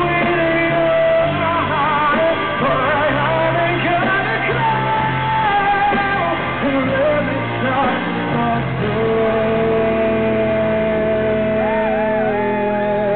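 Male lead vocalist singing live with a rock band, belting long held notes with wavering pitch over sustained band chords. The recording is thin and dull, with no highs.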